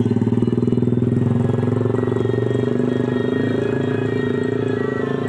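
A vehicle engine running steadily at idle, with a fast, even throb.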